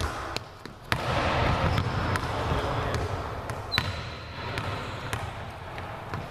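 Volleyball being passed and bouncing on a sports-hall floor: several sharp smacks, the loudest about a second in and again just before four seconds in, over a low background of movement in the hall.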